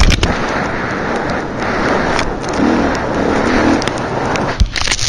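Enduro dirt bike engine running under throttle on a rough trail, heard through a helmet camera and buried in a heavy rush of wind and trail noise. A hard knock comes right at the start and another about four and a half seconds in, as the bike hits bumps, followed by a rattle of small knocks.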